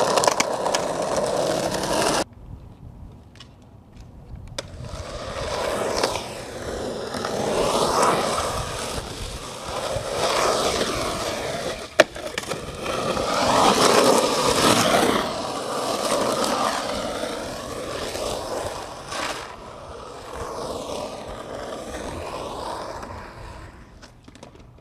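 Skateboard wheels rolling over rough concrete, the roar swelling and fading as the board passes, with one sharp clack of the board about halfway through.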